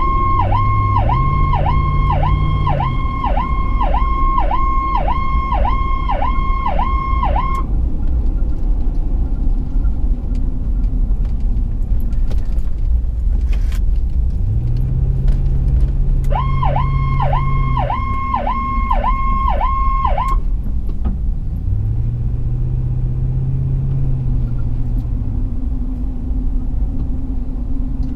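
An emergency vehicle's electronic siren, heard from inside the responding vehicle's cabin over steady engine and road rumble. It cycles quickly up and down, about twice a second, for roughly the first seven and a half seconds, stops, then sounds again for about four seconds in the middle.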